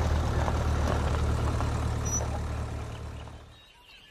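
Engine of an open safari Land Rover, a low steady hum as the vehicle drives off, fading away about three and a half seconds in.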